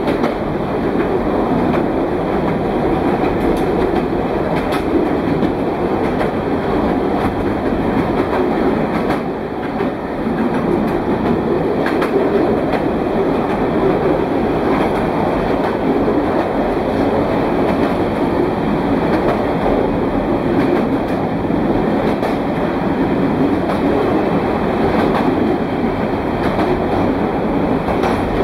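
Narrow-gauge train, hauled by a diesel locomotive, running steadily through a tunnel: a loud, even rumble of wheels on rail and engine, with scattered sharp clicks and a brief lull about ten seconds in.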